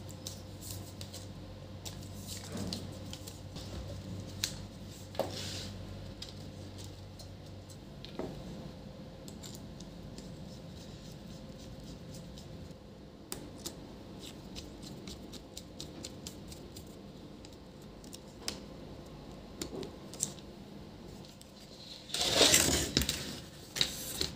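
Scattered small clicks and taps of a laptop being put back together: plastic case parts pressed into place and screws driven with a hand screwdriver. A louder rubbing noise lasts about a second near the end.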